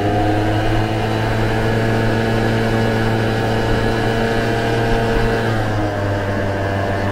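Vespa scooter's single-cylinder four-stroke engine running steadily while riding at road speed. Its pitch dips briefly about three-quarters of the way through as the throttle eases, then climbs again near the end.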